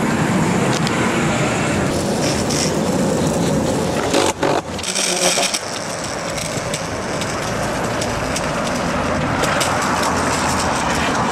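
Metro train noise while boarding, then about four and a half seconds in a change to longboard wheels rolling on a sidewalk, a steady rough rolling with many small clicks and rattles, with street traffic behind.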